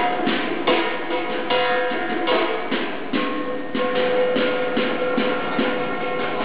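Chinese Taoist ritual music accompanying the 'breaking hell' rite: drum and cymbal strikes about twice a second under a steady, held melodic line.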